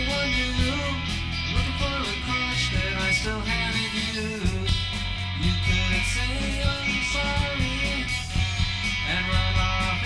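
Instrumental rock from a power trio: electric guitar, bass guitar and drum kit playing together, with the guitar line bending and sliding between notes over a steady beat.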